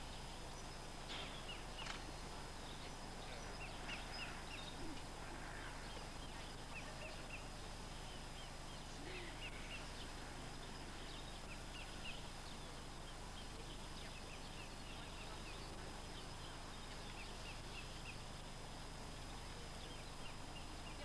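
Faint outdoor ambience: small birds chirping in short runs of two to four high notes throughout, over a steady low hum and hiss.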